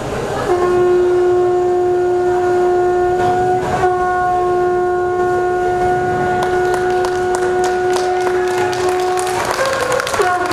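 Conch shell (shankha) blown in one long, steady note lasting about nine seconds, with a brief wobble in pitch about four seconds in, then cut off near the end.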